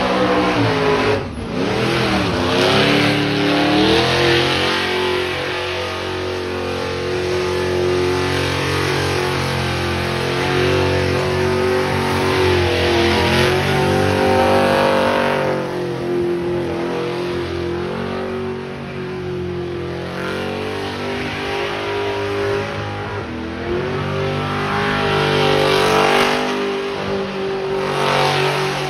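A car engine is held at high revs through a long burnout, with tyre squeal and hiss over it. The engine note sags briefly and climbs back about three times.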